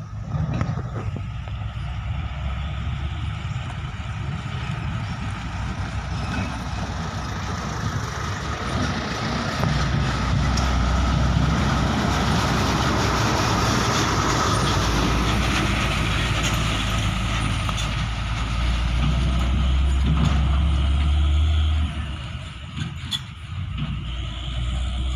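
Hino dump truck's diesel engine running as the loaded-hauling-size truck drives up and passes close by on a rough dirt-and-gravel road. The sound grows louder about ten seconds in and drops off sharply near the end as the truck moves away.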